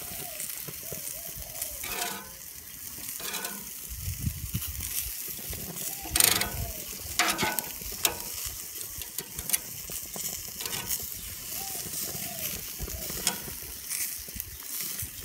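Sausages sizzling on a grill, a steady hiss of fat cooking, broken by a few sharp cracks; the loudest is about six seconds in.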